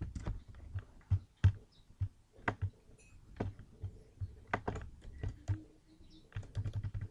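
Irregular clicking of a computer keyboard and mouse, a few clicks a second, some much louder than others.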